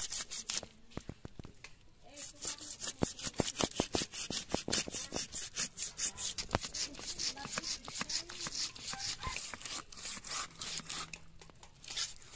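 Rapid, repeated rasping strokes of hand food preparation, about four a second, easing off briefly near the end.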